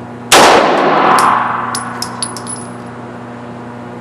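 A single pistol shot in an indoor shooting range, ringing and echoing off the walls for over a second, followed about two seconds in by a few light metallic clinks typical of spent brass casings landing.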